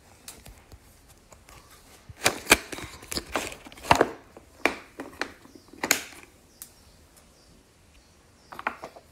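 Hand-operated pull-type mini garlic chopper, its plastic bowl, lid and blades clacking and rattling. There is a series of sharp knocks, about eight loud ones in the middle, then a few softer ones near the end.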